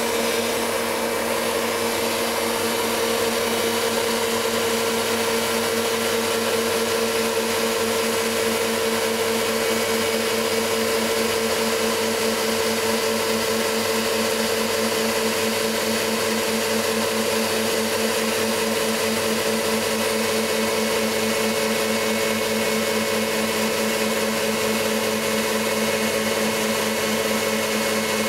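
KitchenAid Heavy Duty stand mixer running with a steady, even motor hum, its wire whisk beating egg whites into meringue while caster sugar is added.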